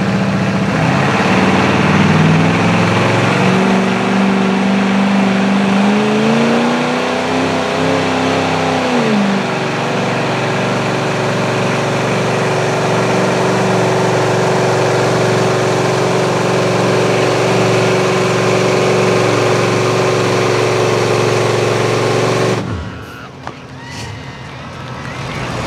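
Square-body Chevrolet pickup's engine running hard under full load, pulling a weight-transfer sled. Its pitch climbs over the first couple of seconds, rises and falls back again around seven to nine seconds in, then holds steady. About 23 seconds in the engine note drops away abruptly as the pull ends.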